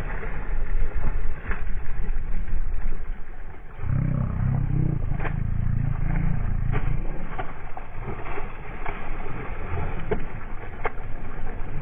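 Water splashing as a hooked grouper thrashes at the surface, in short sharp bursts. From about four seconds in, a low rumble runs underneath.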